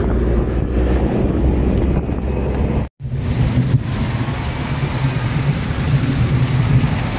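Wind buffeting the microphone during a thunderstorm, then, after an abrupt break about three seconds in, a steady hiss of heavy rain with a low rumble under it.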